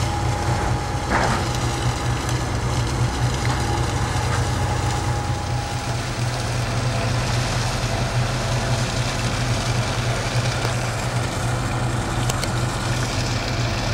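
Steady low drone of a fishing boat's engine and deck machinery, with a thin steady whine over it that stops about six seconds in, and a couple of sharp clicks near the end.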